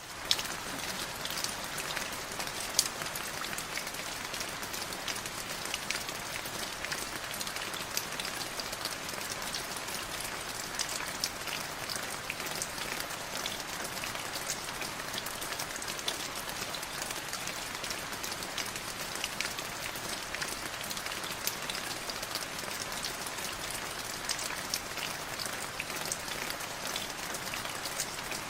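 Heavy rain falling steadily: an even hiss sprinkled with many sharp drop impacts.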